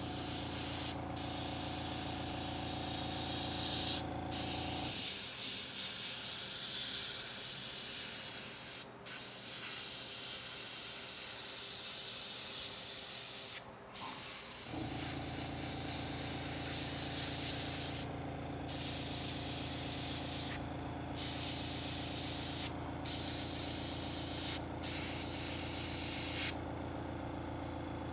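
Airbrush hissing in repeated spurts as the trigger is pressed and released, spraying paint to build up a loose smoke effect. Under it an air compressor hums steadily, cutting out about five seconds in and starting again about fifteen seconds in.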